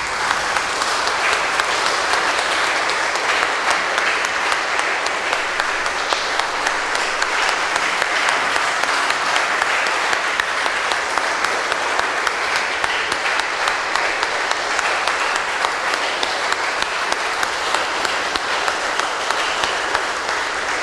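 Congregation applauding, a dense clapping that starts all at once and keeps up steadily, easing slightly near the end.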